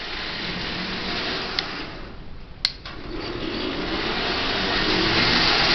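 Marx Commodore Vanderbilt O-gauge toy locomotive running on DC: its electric motor whirs and its wheels rattle along tinplate track. The sound dips midway, with a single sharp click, then grows steadily louder as the train comes closer.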